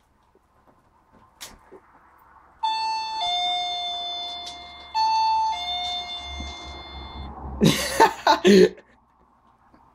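Two-tone 'ding-dong' doorbell chime, sounding twice: a higher note then a lower one that rings on and fades, repeated about two seconds later. A brief burst of loud, rough noise follows near the end.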